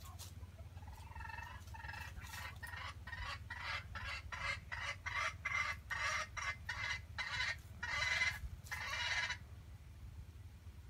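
A chicken calling in a long run of short, rapid clucks, about two to three a second, getting louder before stopping suddenly near the end.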